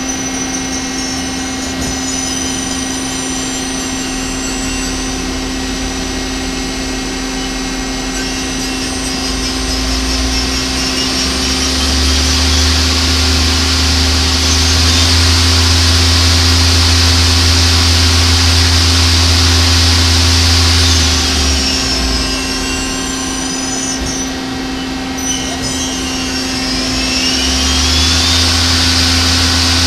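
Mori Seiki SL-150S CNC turning center running a cycle: a steady hum under high whines that rise and fall as the spindles speed up and slow down. A louder, deeper stretch begins before the middle, drops away about two-thirds of the way through, and comes back near the end.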